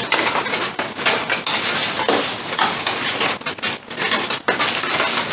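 Objects being handled and set down in a box: irregular knocks, light clinks and rustling.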